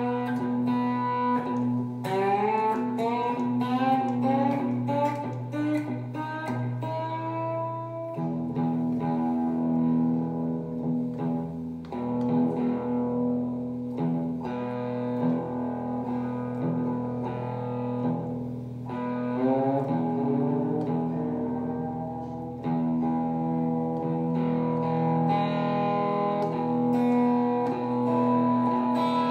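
Three-pickup Chibson Firebird electric guitar in open E tuning played slide-style: picked notes, many sliding up in pitch, over low open strings ringing steadily.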